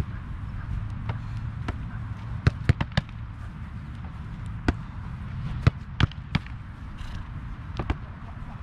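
Irregular sharp thuds of footballs being kicked and caught in goalkeeper drills, some in quick clusters of two or three, over a steady low rumble.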